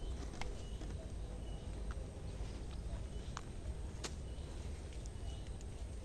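Footsteps and a walking stick moving through dense garden undergrowth: soft rustling with a few sharp snaps and clicks of twigs. A faint high chirp repeats about once a second over a steady low rumble.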